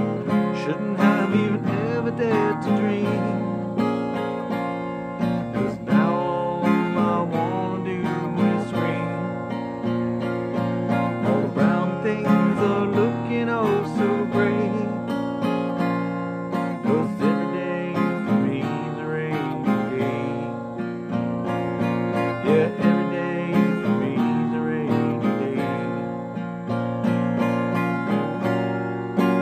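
Fender Sonoran acoustic guitar with a capo, strumming chords in an instrumental passage with no singing.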